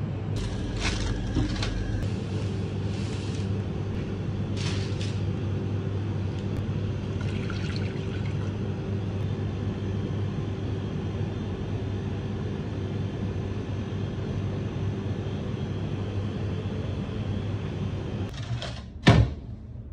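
Steady low hum of kitchen machinery, with a few short rustling noises in the first few seconds and one sharp, loud knock near the end.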